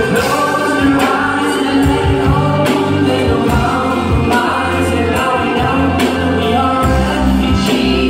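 Live band music: a bowed violin carrying the melody over a drum kit and bass guitar, with sustained notes and regular drum hits.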